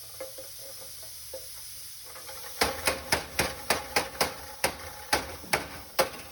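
Hickory wood mallet tapping sheet-metal pro rail down onto the ends of hollow duct turning vanes. After a few light handling clicks, a quick, steady run of sharp knocks starts a little past halfway, about four a second.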